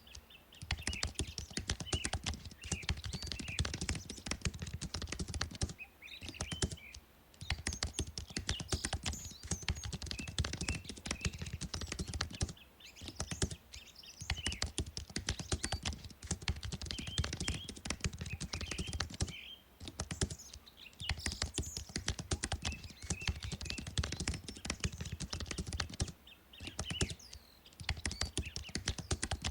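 Rapid typing on a computer keyboard, in long runs of fast key clicks broken by short pauses every several seconds.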